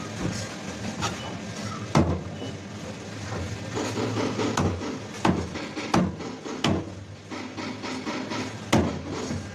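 Knife chopping fish on a wooden cutting board: about seven sharp knocks at irregular intervals, with rubbing and scraping between them.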